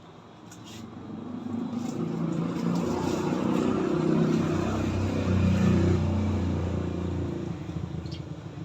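A motor vehicle passing by, its engine note growing louder, then fading away.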